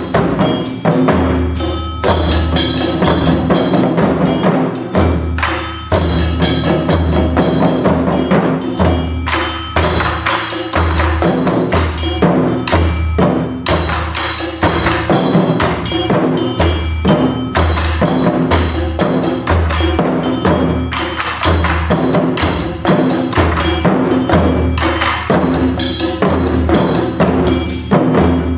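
Modern-style taiko drum music played without shouted calls (kakegoe): rapid, dense drum strikes over a repeating low bass pulse.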